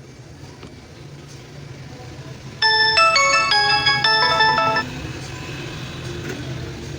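A short electronic chime melody of several stepped notes, about two seconds long, from a Samsung Galaxy Tab A 7.0 tablet, the kind of tune the tablet plays on start-up or when connected. A low steady hum runs underneath.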